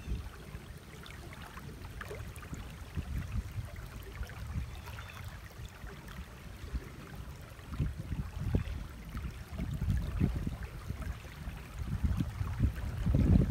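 Wind buffeting the microphone outdoors: irregular low rumbling gusts that grow stronger in the last few seconds.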